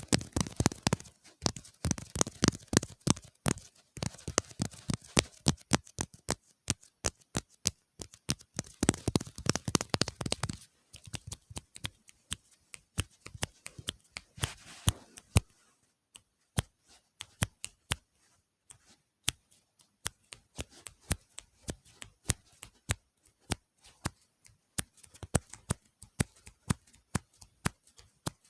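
ASMR tapping and clicking close to the microphone: quick, dense taps for about the first ten seconds, then sparser, separate clicks and taps.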